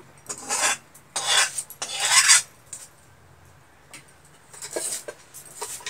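Onion skin being peeled and cut against a boti, a fixed upright curved kitchen blade: three scraping strokes in the first two and a half seconds, then a few light ticks near the end.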